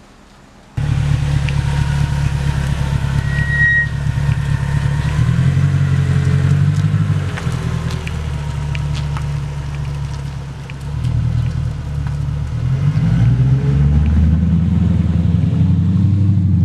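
Mercedes-Benz S55 AMG's V8 running as the car pulls away and drives along the street. The engine note eases off through the middle and rises again toward the end.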